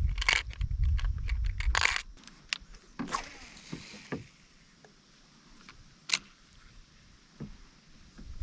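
Small hard objects clicking and rattling, consistent with fishing tackle being handled: a dense run of clicks in the first two seconds, then scattered single clicks and one sharper click about six seconds in.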